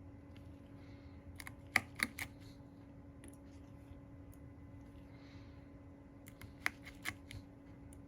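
Small, sharp clicks of a precision screwdriver or tweezers on tiny screws and a metal retaining plate inside an iPhone. They come in two clusters of three or four clicks, about two seconds in and again about seven seconds in, over a steady low hum.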